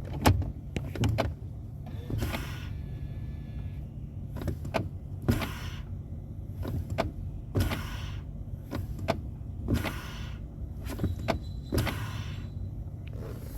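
2012 Chrysler Town & Country's 3.6-litre V6 idling steadily while the brake pedal is pressed again and again, with a short hiss and clicks from the freshly repaired brake booster and pedal each time. The booster now holds its vacuum.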